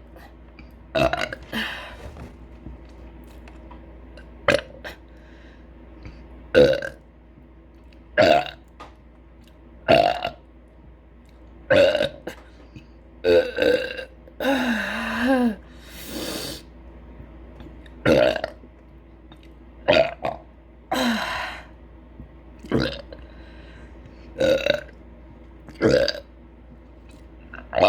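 A woman burping over and over, short belches coming about every two seconds. About halfway through, one longer, drawn-out belch wavers and falls in pitch.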